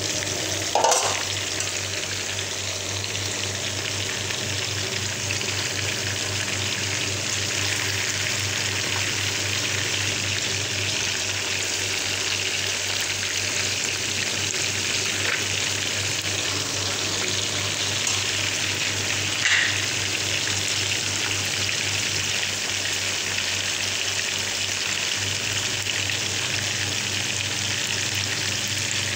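Fish steaks deep-frying in hot oil in a pan: a steady sizzle and bubble, with two brief louder sounds, one about a second in and one about two-thirds of the way through.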